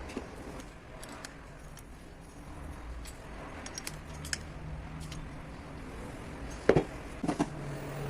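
Scattered light clicks and a few sharp knocks of small hard parts being handled, the loudest a quick cluster of knocks near the end, over a faint low hum.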